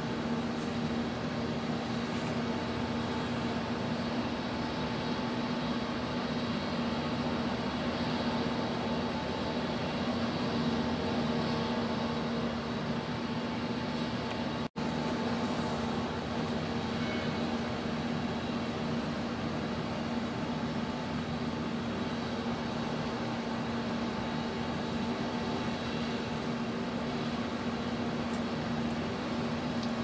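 Steady low mechanical hum with a droning tone, unchanged throughout except for a momentary dropout about halfway through.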